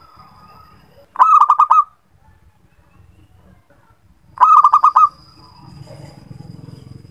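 Zebra dove (perkutut) cooing: two quick runs of about six clipped staccato notes each, the first about a second in and the second some three seconds later.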